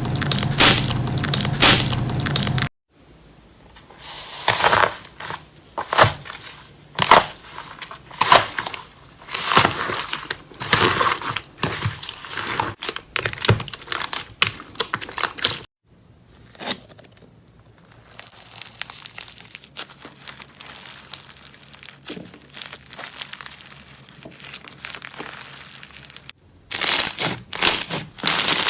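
Slime being squeezed and worked by hand, giving dense, irregular crackles and pops. The sound breaks off abruptly twice, where clips are cut together.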